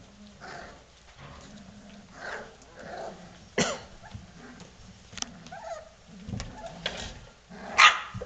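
A litter of four-week-old Vizsla puppies giving scattered short calls and yips while they play. A sharp yip comes about three and a half seconds in, and the loudest call comes near the end.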